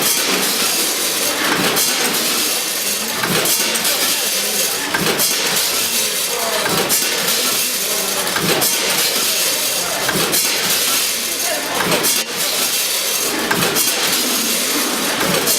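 Packaging machine running, with a steady hiss and many short clicks, and people's voices in the background.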